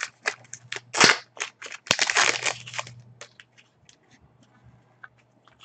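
Foil wrapper of an Upper Deck SPx trading-card pack being torn open and crinkled by hand: sharp crackles, densest about two seconds in, then thinning to a few light clicks as the cards are handled.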